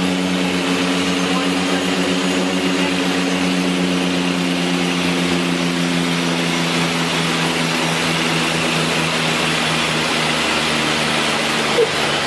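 Steady aircraft engine drone heard in flight: a broad rushing noise with a low multi-tone hum that fades out about two-thirds of the way through, and a short click near the end.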